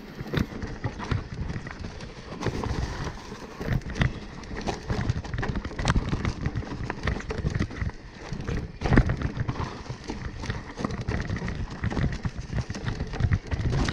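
Mountain bike descending a rough dirt trail: tyres rolling over dirt and dry leaves, with irregular knocks and rattles from the bike over bumps. The loudest knock comes about nine seconds in.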